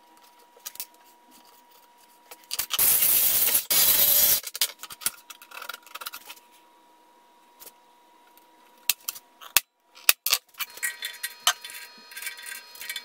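Sheet-metal shop handling: thin steel plates clinking and knocking on a steel bench, with two short harsh scraping strokes about three seconds in. Near the end, a steady machine hum of several tones joins the clicks: a drill press running.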